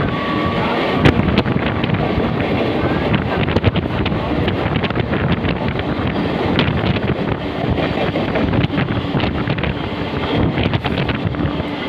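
Wind buffeting the microphone at the open doorway of a moving train, over a steady rumble of wheels running on the rails, with scattered sharp clicks.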